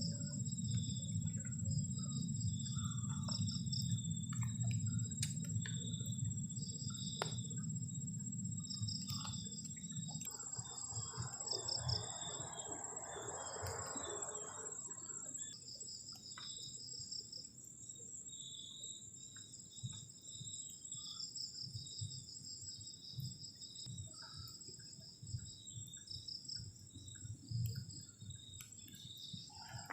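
Crickets chirping in repeated pulsing bursts over a steady high insect trill. A low rumble runs under them for about the first ten seconds, and a brief hiss comes in around the middle.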